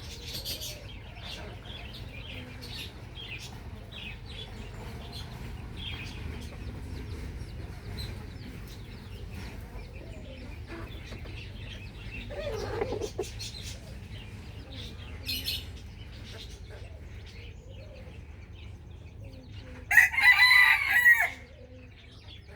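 Chickens clucking, with scattered short bird calls, then one loud rooster crow lasting a little over a second near the end.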